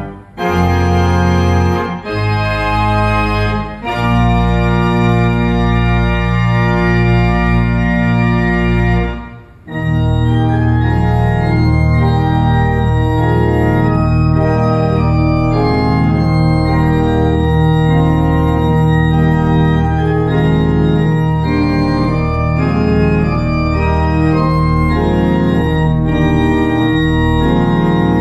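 Restored 90-year-old Moeller pipe organ playing sustained full chords with deep pedal bass. A few short breaks between chords near the start and a brief pause about nine seconds in, then an unbroken run of changing chords.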